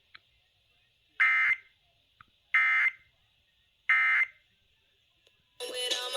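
Emergency Alert System end-of-message (EOM) code sent three times as short, harsh digital data bursts, about a second and a half apart, marking the close of the EAS test. Station music starts abruptly near the end.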